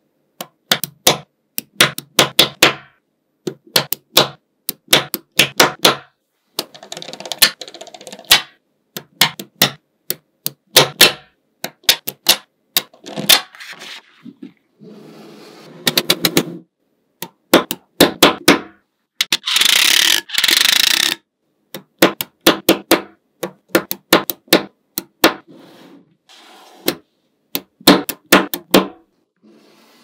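Small neodymium magnet balls clicking sharply together in quick runs as rows and blocks are snapped onto each other, with a longer, louder rattling burst about two-thirds of the way through.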